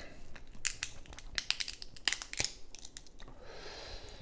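King crab shell cracking and snapping as it is pulled apart by hand, a quick run of sharp crackles.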